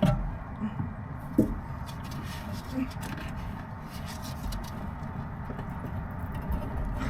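Wind rumbling on the microphone, with a few short knocks and clicks from a ratchet and socket being strained against a seized brake caliper bolt; the sharpest knock comes about a second and a half in.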